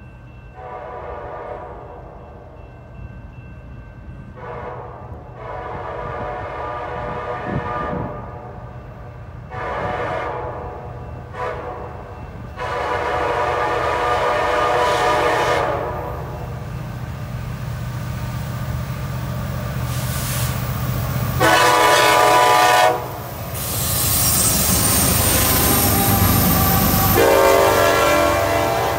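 Freight train's diesel locomotives (KCS 4039 leading CN 3904) approaching and passing, the lead unit's air horn sounding a string of long and short blasts for a grade crossing. The engines' deep rumble grows steadily louder and becomes loud passing-train noise in the last few seconds, with two more loud horn blasts just before and as the locomotives go by.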